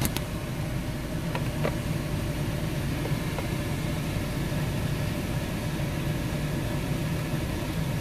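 Nissan Grand Livina's engine idling steadily, with a few faint clicks of a screwdriver fastening the plastic steering-column cover.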